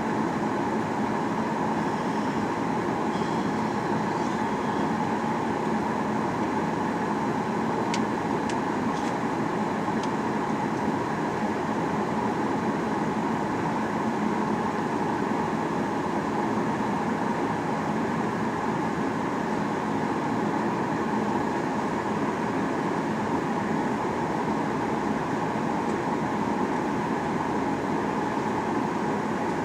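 Steady cabin drone of a Boeing 737-800 in flight on approach, from its CFM56-7B engines and the rush of air over the fuselage. A few faint clicks come about eight to ten seconds in.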